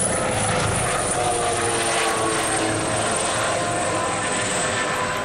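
Kawasaki OH-1 observation helicopter flying its display overhead: steady rotor and turboshaft engine noise, with a high thin whine that slowly falls in pitch.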